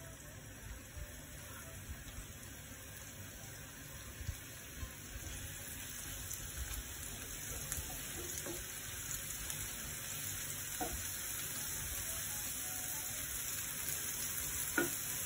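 Sliced mushrooms sizzling in oil in a nonstick frying pan, the hiss growing slowly louder, with a few light knocks of a wooden spatula as the slices are turned, the sharpest near the end.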